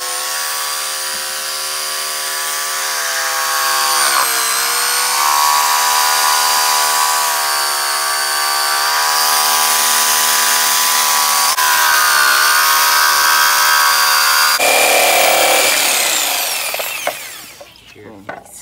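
Skil corded jigsaw cutting a circular hole in a pine board. The motor runs steadily and its pitch sags twice as the blade bogs down in the wood. Near the end the motor winds down.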